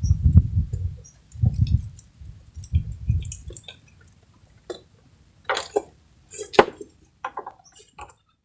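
Fishing rod and tackle being handled: a few low, dull thumps in the first few seconds, then several sharp clicks and clinks.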